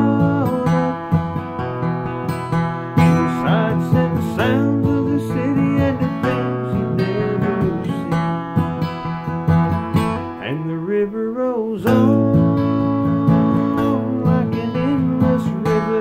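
Acoustic guitar played steadily with strummed chords, and a man singing over it.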